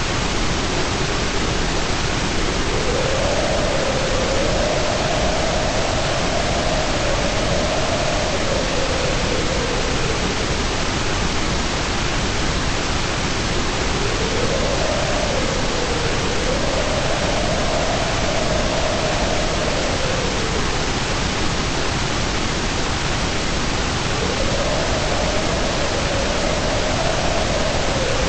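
Steady white noise, an even hiss. A faint humming tone rises and falls slowly within it, fading in and out three times.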